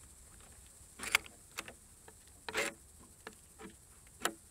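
Iron binding chain knocking and scraping against the logs as it is fastened around the load: about half a dozen short, sharp knocks at uneven intervals.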